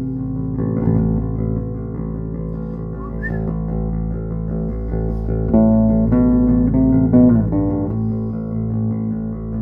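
Electric bass guitar played through a 1970s Acoustic 320 bass amp head: held notes ringing on, with one note sliding down in pitch about seven seconds in.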